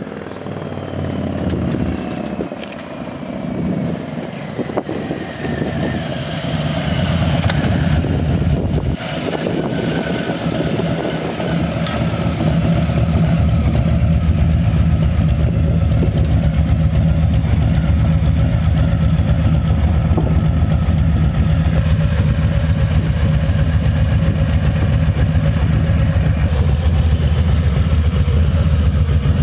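Harley-Davidson 2020 Low Rider S Milwaukee-Eight 114 V-twin running through Vance & Hines slip-on mufflers. It grows louder over the first dozen seconds, then settles into a steady, deep, loud rumble.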